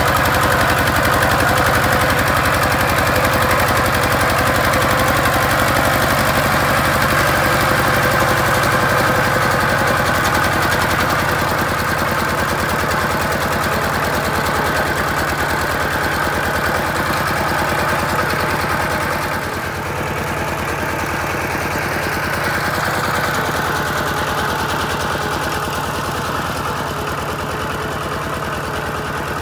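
A two-wheel walking tractor's single-cylinder diesel engine running steadily with a rapid, even beat as the tractor drives along. It gets a little quieter about two-thirds of the way through.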